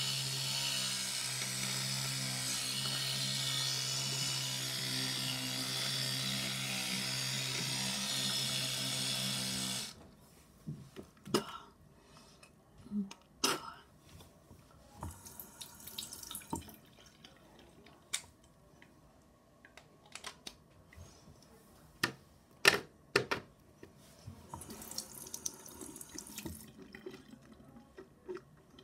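Electric toothbrush buzzing steadily while brushing teeth, switched off suddenly about ten seconds in. After that come scattered clicks and knocks and a short hiss near the end.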